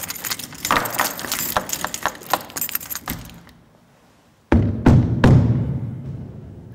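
Rapid metallic jangling and clinking for about three seconds, then, after a short lull, three heavy booming hits in quick succession that ring on and slowly fade.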